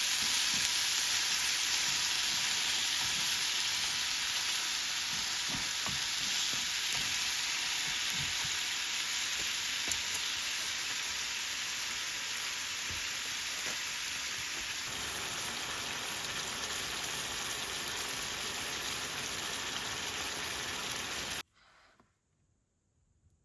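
Food frying, a steady sizzle that cuts off abruptly near the end.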